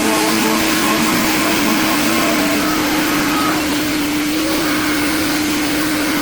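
Machinery running with a steady droning hum, as music fades out about a second in.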